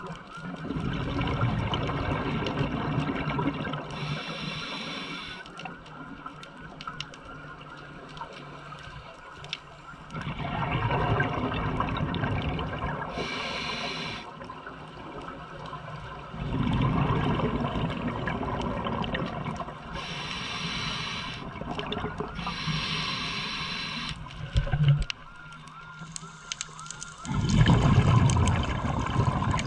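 A scuba diver's regulator breathing underwater. Four long exhalations of bubbles come several seconds apart, with shorter hisses of inhalation between them. There is a brief knock just before the last exhalation.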